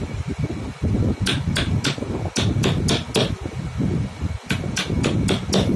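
Hammer tapping a small steel punch into a thin jigsaw-cut wooden cutout resting on a wooden block. About a dozen sharp taps come in three short runs of three or four, about three a second, over a steady low rumble.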